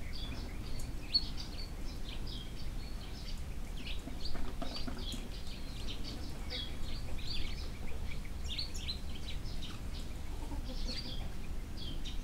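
Small birds chirping and twittering in many short, irregular calls, over a steady low background rumble.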